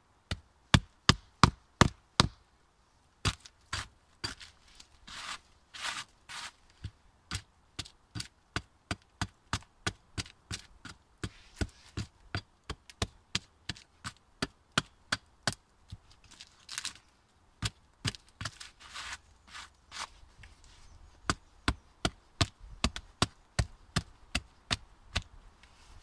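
A small hatchet chopping into a rotten pine log, short sharp strokes about two a second, with a few scraping sounds between them. A few louder wooden knocks open the run, from a wooden baton striking a knife set in the log.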